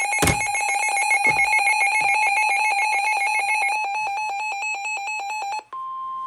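Electronic alert tone between emergency broadcast messages: a rapidly pulsing, ringing alarm sound with several pitches, crossed by a thump about a quarter-second in and a weaker one a second later. Near the end it breaks off and switches to a steady single-pitched beep.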